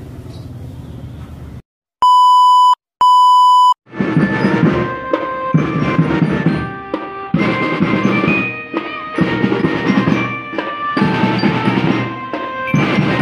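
Two loud, steady electronic beeps, each under a second long, about two and three seconds in. A school drum band then plays: marching drums beating with melody notes on top.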